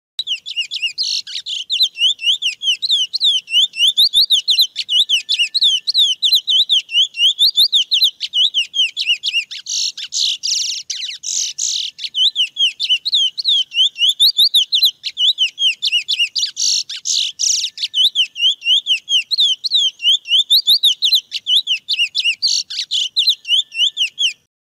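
Male chestnut-bellied seed finch (curió) singing its wild 'mateiro'-style song: a long, unbroken run of quick, sweeping whistled notes.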